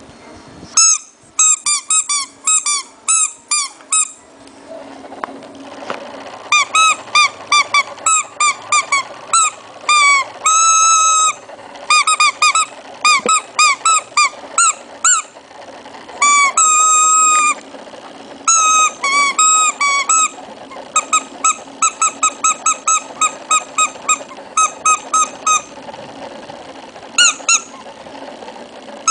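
Shih Tzu puppy making a strange high-pitched noise: runs of short squeaky cries, several a second, with a few longer held cries between them.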